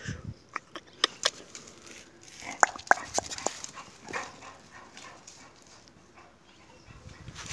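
A pet dog making short, sharp sounds, a few brief yips, scattered irregularly, the loudest two close together a little before halfway through.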